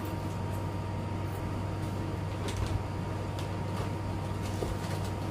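Steady hum of a room air conditioner. A few faint clicks and rustles come through it between about two and a half and three and a half seconds in.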